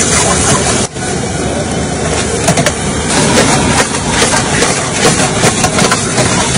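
Steady roar of a gas wok burner under a large steel wok of egg fried rice sizzling, with a metal ladle and spatula scraping and clinking against the pan. The sound dips briefly about a second in.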